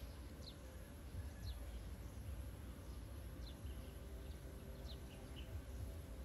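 Faint outdoor ambience: several short, high chirps that fall in pitch, the kind a small bird makes, over a steady low rumble.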